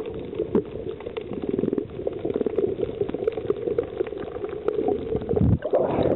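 Underwater camera audio: a steady bubbling and crackling of water around the microphone. About five and a half seconds in, the camera breaks the surface and the sound turns to water sloshing over the microphone.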